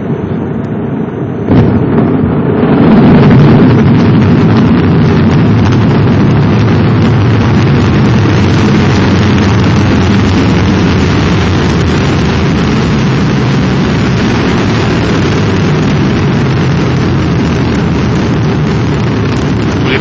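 Ariane 5 ECA rocket lifting off, its two solid rocket boosters and Vulcain 2 main engine firing at full thrust: a loud, steady, low rumbling roar. It jumps up sharply about a second and a half in, then holds, easing off only a little as the rocket climbs.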